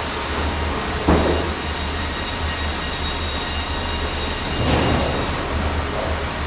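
Sawmill machinery running steadily with a low hum and a high-pitched whine. The whine cuts off about five seconds in, and brief louder swells of noise come about a second in and again near five seconds.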